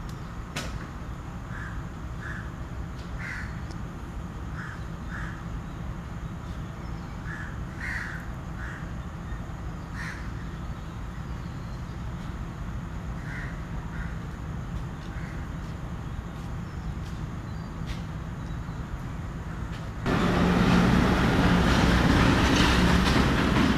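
Crows cawing in short pairs and threes over a steady low rumble. About 20 s in, a Class M8 diesel locomotive pulls in alongside, and its engine and wheels on the rails suddenly grow loud.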